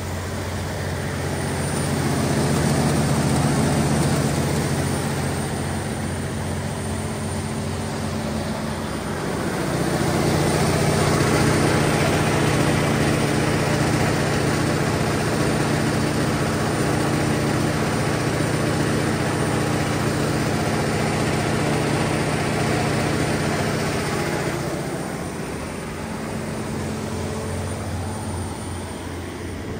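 Cummins NTA-855-G3 turbocharged inline-six diesel engine of a 350 kW generator set running steadily at 1800 rpm under full load, about 354 kW. The steady drone swells louder a couple of seconds in and again from about ten to twenty-four seconds in, softer in between.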